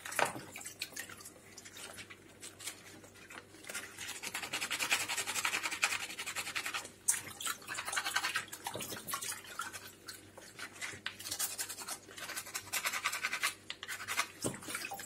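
Two mussel shells rubbed hard against each other in water, a rapid scraping that comes in several spells. The shells are being scrubbed to strip off the grit and growth stuck to them.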